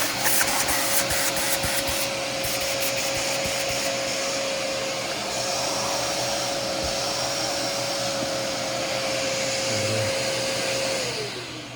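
Hoover Power Dash portable shampooer's suction motor running with a steady whine and rush of air, with crackling ticks in the first few seconds. Near the end it is switched off and its pitch falls as the motor winds down.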